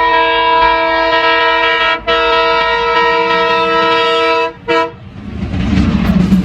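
Indian Railways locomotive horn sounding a long, steady chord blast, with a brief break about two seconds in, cutting off about four and a half seconds in after a short final toot. Then the rising rumble of the train passing close by.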